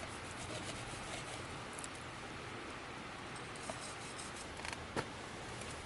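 Steady rushing of a river, with a few light clicks and taps over it; the sharpest comes about five seconds in.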